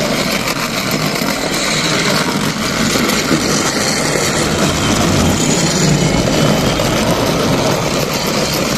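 Battery-powered toy elephant train's small electric motor and plastic gears whirring steadily as it runs along plastic track.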